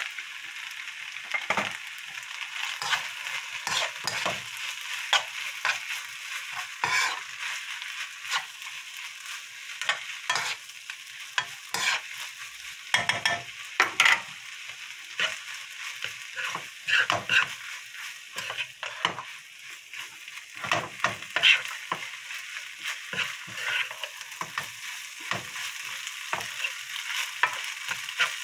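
Kimchi fried rice sizzling in a frying pan while a spoon stirs and scrapes through it, with irregular knocks of the spoon against the pan over a steady frying hiss.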